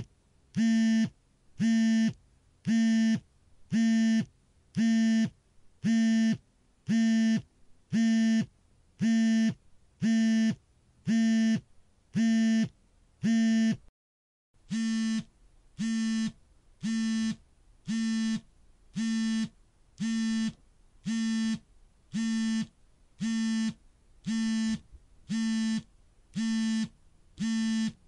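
Mobile phone vibrating alert: a buzz repeating about once a second, each buzz about half a second long. It breaks off briefly about halfway through, then carries on slightly quieter.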